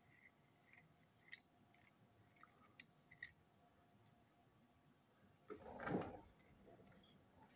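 Faint, sparse clicks of small plastic and metal parts being handled while a front coupling is fitted to a TrackMaster toy engine, then one louder, short rush of noise about six seconds in.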